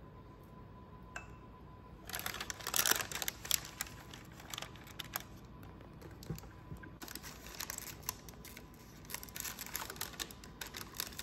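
Parchment paper and a plastic clamshell date tub crinkling and crackling under hands that press dates into rows in a lined glass dish, a run of small crackles and clicks starting about two seconds in.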